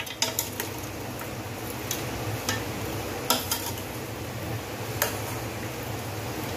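A metal spoon stirs chunks of pork in a metal cooking pot, with scattered irregular clinks and scrapes against the pot, over a steady sizzle from the pan.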